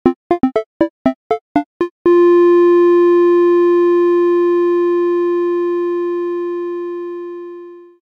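Little happy cartoon tune: a quick run of short, bouncing notes, then about two seconds in one long final note that slowly fades away.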